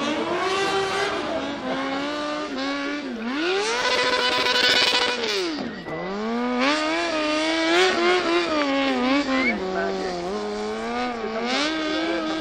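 Sport motorcycle engine revving hard, its pitch swinging up and down as the rear tyre is spun in a smoking burnout. It is held at high revs for about two seconds around four seconds in, then drops sharply before climbing again.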